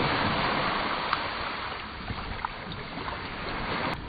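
Seaside wind and surf: a steady rushing hiss, stronger for the first couple of seconds and then easing off.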